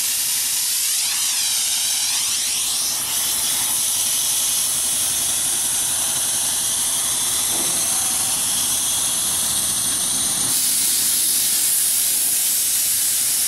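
Air-bag suspension of a 1953 Chevrolet coupe venting air with a steady, loud hiss as the car is let down onto its wheels. The hiss grows louder about ten seconds in.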